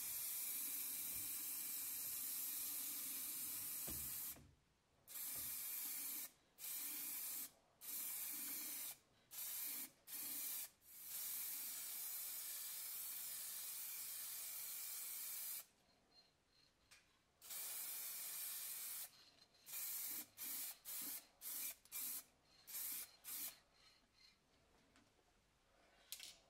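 Paint sprayed onto a steel helmet in hissing bursts while a brown top coat goes on. There are two long sprays, one at the start and one around the middle, with many short quick bursts between and after.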